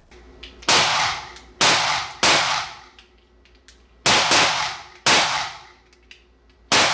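CZ P-07 9mm Luger pistol fired six times: three shots in quick succession over the first two and a half seconds, then three more spaced a second or more apart, each shot ringing briefly after the crack.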